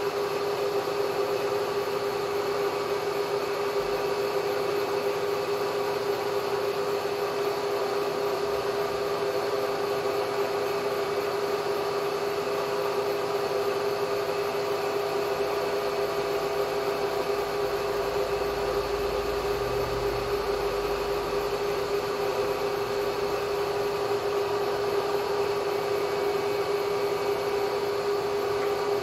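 Bridgeport J-head milling machine running steadily with its boring head under power feed, taking a light finish cut in a bored hole. A constant hum with one strong steady tone, unchanging throughout.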